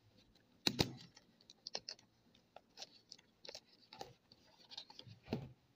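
Hands handling a shrink-wrapped cardboard phone box: scattered light clicks, taps and crinkles of the plastic wrap, with a louder knock just before a second in and another near the end.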